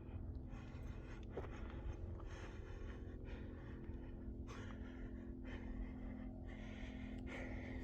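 A man breathing hard while hiking uphill, loud breaths in and out coming one after another: he is out of breath from the climb.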